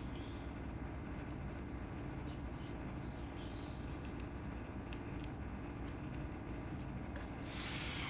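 Low steady background noise with a few faint scattered clicks. About seven and a half seconds in, a steady hiss comes in.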